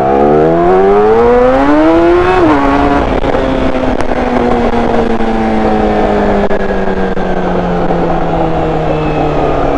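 Yamaha YZF-R6's inline-four engine revving up under hard acceleration, its pitch rising steeply, then dropping sharply about two and a half seconds in and sinking slowly as the bike slows down.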